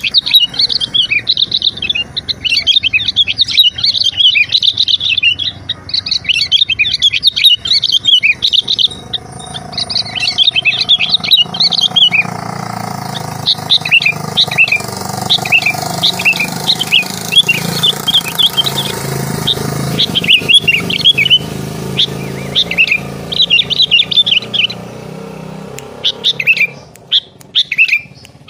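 Many small birds chirping rapidly and continuously. A low steady rumble runs underneath through the middle stretch and fades out near the end.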